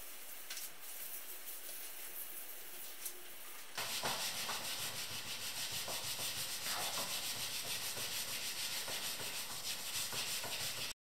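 Soft cloth wiping on a copper top, then, about four seconds in, a louder scouring pad scrubbing the copper edge with Bar Keepers Friend cleanser in quick back-and-forth strokes, a steady rhythmic rubbing that stops abruptly near the end.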